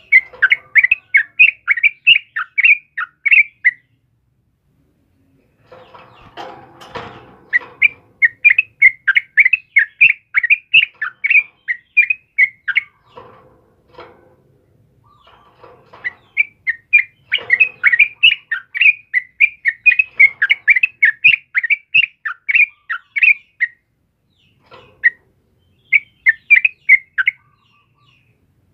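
Caged yellow-vented bulbul (trucukan) singing in runs of quick, sharp chattering notes, about four a second. It gives three long runs of several seconds each, separated by pauses, then a short burst near the end. A brief rustling noise comes between the first and second runs.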